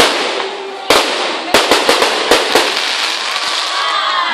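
Aerial fireworks shells bursting. There is a bang at the start, another about a second in, then a quick run of about seven bangs in the middle, all over a steady crackling hiss from the glittering stars.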